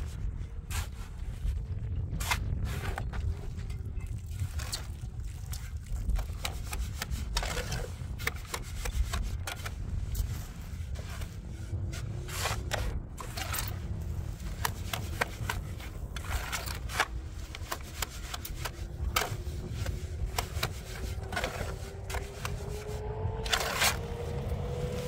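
Irregular scrapes and knocks over a steady low rumble. A faint hum rises slowly in pitch during the last few seconds.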